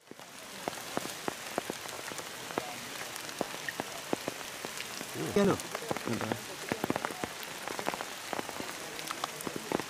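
Steady rain falling on forest foliage, with many sharp drops landing close by. A brief voice-like sound comes twice, about five and a half and six seconds in.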